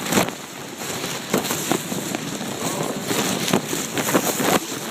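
Hurricane rain and wind hitting the microphone: a steady rushing hiss broken by irregular crackling taps of drops striking it.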